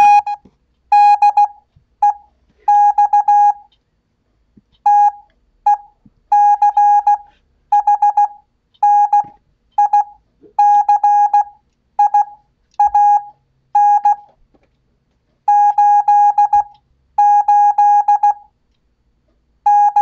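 Morse code (CW) practice tone from a Vectronics PMT-228 code trainer: a single steady beep keyed on and off in short dots and longer dashes, sending letters at 15 words per minute with Farnsworth spacing, so each character is sent quickly and followed by a longer gap.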